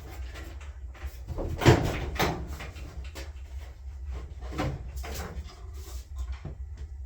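Sheet-metal inner front panel of a dryer being worked loose and lifted off, a series of knocks and metal rattles, the loudest about a second and a half in.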